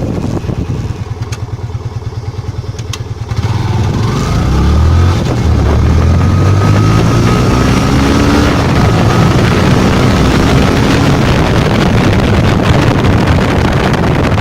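Yamaha FZ-S FI V2.0's single-cylinder engine running at a low, evenly pulsing idle. About three and a half seconds in it opens up and the exhaust note climbs in pitch over a few seconds, then holds steady and loud at higher revs.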